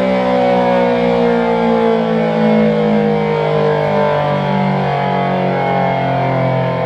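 ACA P-10 outdoor warning siren sounding the attack signal, a wailing chord slowly falling in pitch, with steady lower tones underneath.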